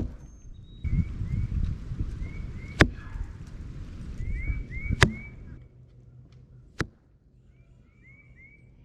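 PSE Mach 33 compound bow being shot: four sharp snaps of the string releasing, about two seconds apart, over wind buffeting the microphone, with birds chirping.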